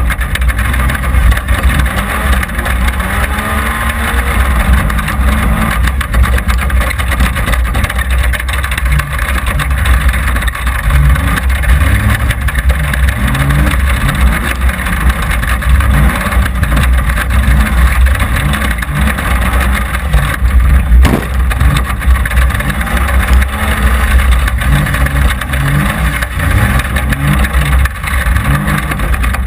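Tough-truck race car's engine running hard around a tight dirt course, revving up and falling back again and again, with heavy rumble and wind on the hood-mounted microphone. A single sharp knock about two-thirds of the way through.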